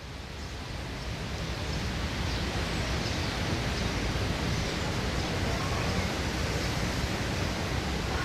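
Steady outdoor background noise, an even broad hiss, fading in over the first two seconds and then holding level.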